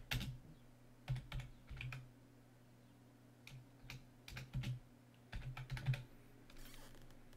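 Typing on a computer keyboard, in short runs of keystrokes with a pause of about a second and a half partway through.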